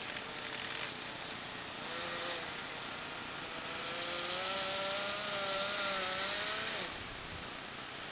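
Small nitro glow engine of a radio-controlled Blizzard tracked vehicle running and revving, its pitch rising and falling with the throttle. It holds a higher rev from about halfway through, then drops back near the end.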